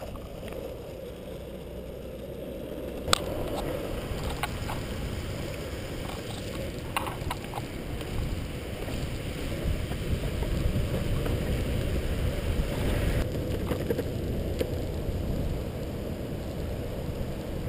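Longboard wheels rolling over asphalt, a steady low rumble that swells a little as the board gains speed, with a few sharp clicks, the loudest about three seconds in.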